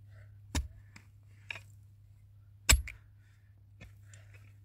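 A pickaxe striking hard, stony soil: two heavy blows about two seconds apart, with a few light ticks between them.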